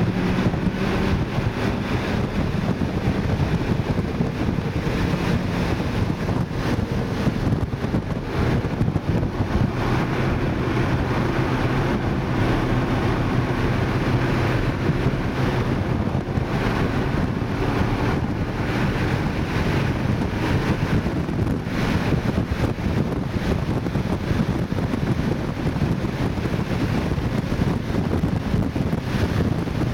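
2012 Mini Cooper S's turbocharged 1.6-litre four-cylinder engine at speed on track, heard from inside the cabin. Its note rises and falls with throttle and gears under heavy wind and road noise.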